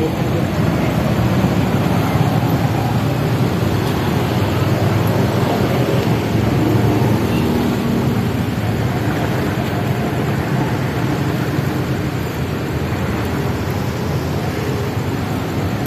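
Busy road traffic: motorcycle, car and truck engines running in a steady, dense stream at close range.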